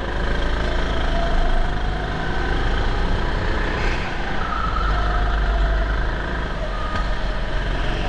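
Go-kart engine running at speed, its pitch rising and falling as the kart accelerates out of and slows into the corners.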